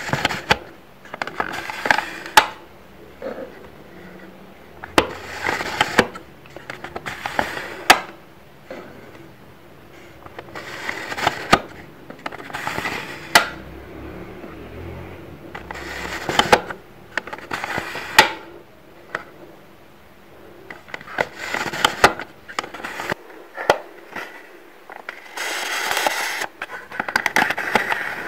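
A plastic View-Master-style toy viewer being handled, its lever pressed again and again to turn the picture disc: bursts of clicking and scraping every couple of seconds.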